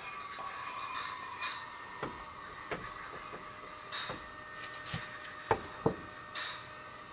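Scattered light clicks and knocks as vegetables and mushrooms are tipped from a bowl into a ceramic donabe clay pot and arranged in it by hand, with two sharper knocks a little over five seconds in. A faint steady hum runs underneath.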